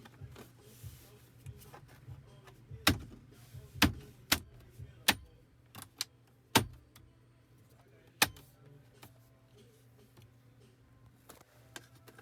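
Plastic interior trim cover of an Audi Q7 center console being pressed into place: a series of sharp clicks and snaps, about six of them between about three and eight seconds in, as its clips seat.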